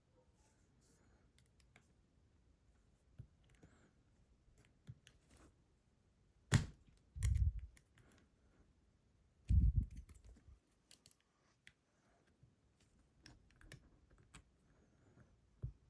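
Small metal clicks and scrapes of lock tools working in an ASSA Desmo slider lock, with three louder knocks a little past the middle.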